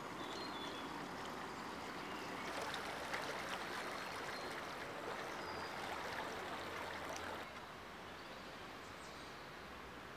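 River water flowing, a soft steady rush that becomes quieter about three-quarters of the way through.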